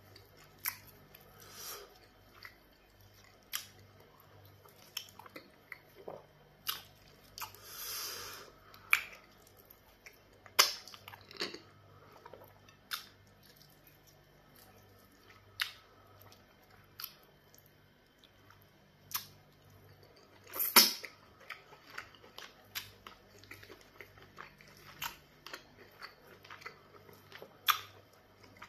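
Close-miked sounds of a person eating pounded yam fufu with black soup by hand: wet chewing, lip smacks and squelches, as a string of short sharp clicks. A longer rush of noise comes about eight seconds in, and the loudest smack about twenty-one seconds in.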